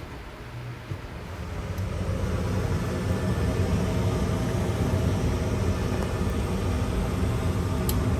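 Gas furnace draft inducer motor starting on a call for heat: a click, then the motor spins up over about two seconds to a steady hum. A light click near the end.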